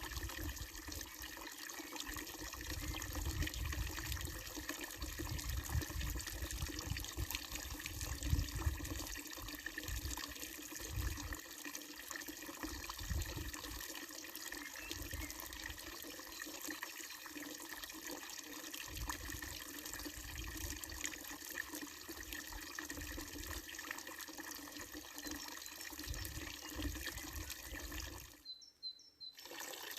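Water running steadily from the wooden spout of a wooden-trough spring fountain and splashing into the trough. The sound briefly drops out about a second and a half before the end.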